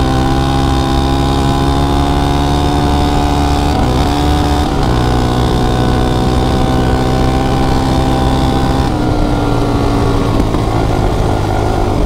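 Suzuki LTZ400 quad's liquid-cooled single-cylinder four-stroke engine pulling under load while being ridden, its note holding fairly steady, with brief breaks and changes in pitch about four seconds and nine seconds in. It runs cleanly, where before the carburetor work it would not stay running.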